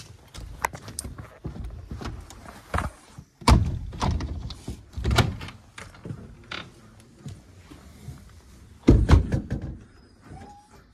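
A house's exterior door being opened and shut, with footsteps and a series of knocks and thuds; the loudest thud comes about nine seconds in.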